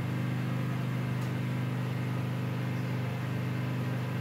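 A steady low machine hum with a faint hiss over it, unchanging throughout.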